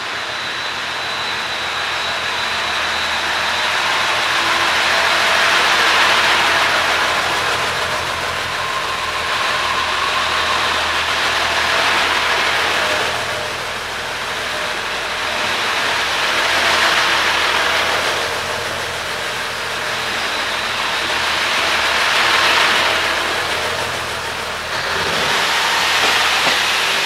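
Diesel generator engine of the JR East HB-E300 series 'Kairi' hybrid train running as the train pulls out along the platform, its sound swelling and easing several times. A faint steady high whine sits under it for the first ten seconds or so.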